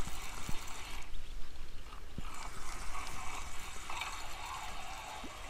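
Spinning feeder reel being wound in spells while a hooked fish is played, the retrieve whirring on and off, over a low rumble of wind on the microphone.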